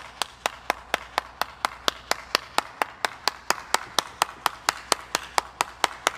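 One person clapping hands steadily and evenly, about four claps a second.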